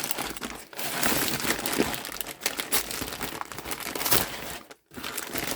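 A package being torn open by hand: plastic packaging crinkling and rustling in quick, irregular handling noises, broken by a brief pause just before the end.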